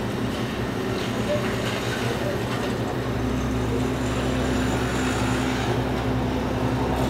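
Steady low engine hum, with a deeper, stronger drone joining about three seconds in and holding.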